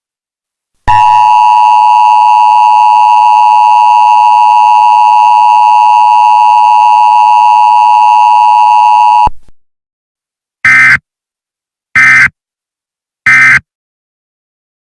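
Emergency Alert System attention signal: a loud, steady two-tone beep held for about eight seconds, then three short SAME digital data bursts about a second and a half apart, the end-of-message code that closes an alert.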